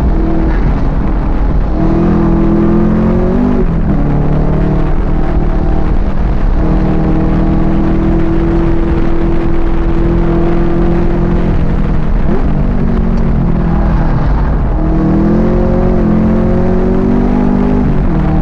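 Muscle car's V8 engine under hard track driving, heard from inside the cabin: the engine note climbs under throttle and drops sharply about four seconds in and again near the end, with a long steady stretch in the middle and a brief dip and blip about twelve seconds in, over constant road and tyre rumble.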